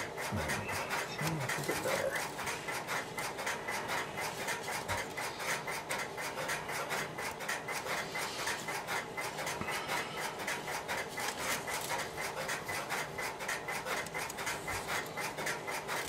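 Continuous scratchy rubbing and rustling of hands handling the thin insulated wires of a 25-pair telephone cable and laying them into an AMP (Champ) connector held in a termination tool. It is a rapid run of small scrapes, many a second.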